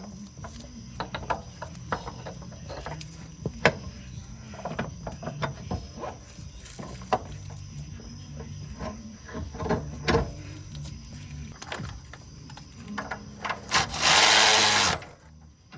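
Hand tools clicking and knocking against metal car parts, over faint background music. Near the end comes a loud burst of hissing noise about a second long.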